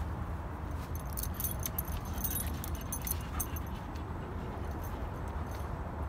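Small metallic jingling, a quick run of light clinks for a couple of seconds starting about a second in, heard while walking on a dirt path, over a steady low rumble.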